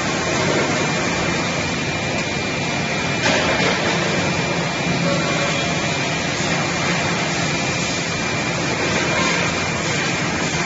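Circular seam welding machine for stainless steel beer kegs running through a weld: a steady rushing noise with a low hum and a thin, steady high whine, and a brief louder burst about three seconds in.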